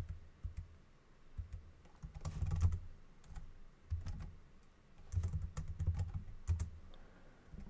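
Typing on a computer keyboard in bursts of quick key clicks with soft low thumps, pausing between runs.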